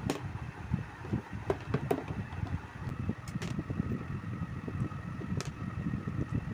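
Table fan running: a low, fluctuating rumble of moving air with a faint steady hum, and a few sharp clicks.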